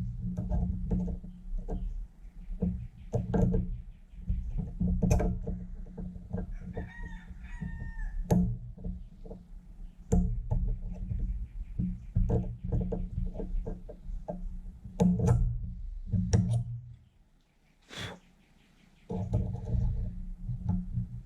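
Irregular metallic clicks and knocks as the Kawasaki KT250's kickstart lever and detent are worked and tried by hand, over a steady low hum that drops out for about two seconds near the end. A rooster crows briefly around the middle.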